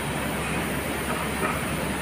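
Automatic cone winding machines in a textile spinning mill running together: a steady, even mechanical hiss and hum with no pauses.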